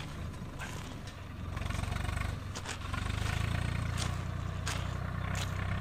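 Swaraj 744 tractor's three-cylinder diesel engine running steadily at a distance, its low hum dipping about a second in and picking up again around three seconds in. A few short clicks sound over it.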